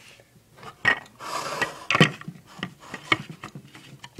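Close handling noise: a short scraping rub about a second in and several sharp clicks and knocks, as fingers handle the camera and the Lego pieces near the microphone.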